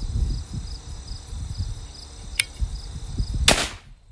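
Crickets chirping steadily over low rumbling handling noise, with a sharp click about two and a half seconds in and a loud, brief burst of noise about three and a half seconds in.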